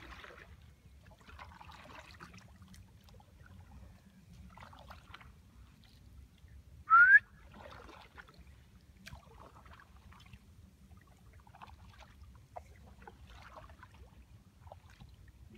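Kayak paddle blades dipping into calm water, soft splashes every second or two over a low steady rumble. About halfway through comes a single short, loud, rising whistle.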